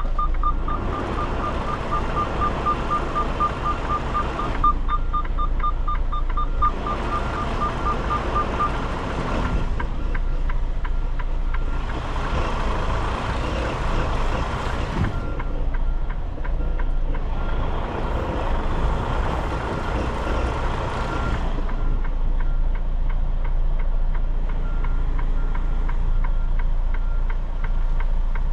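Semi-truck diesel engine running, heard from inside the cab, with a reversing alarm beeping steadily for about the first nine seconds. Four long hisses, each three to four seconds, come and go over the first twenty-odd seconds.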